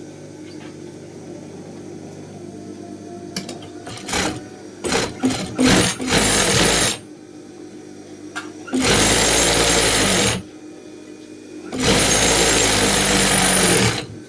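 Electric sewing machine running after its rotary hook has been replaced and set. A low steady hum comes first, then a few short stitching bursts, then three even runs of one to two seconds each.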